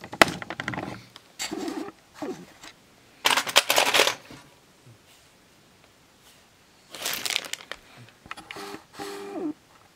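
Metal sewing machine bobbin cases clinking and rattling as they are picked out of a steel drawer and dropped into a plastic zip bag, with the bag rustling, in a few separate bursts.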